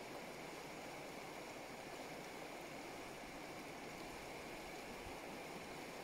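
Shallow river running over rocks and gravel riffles, a steady rush of water.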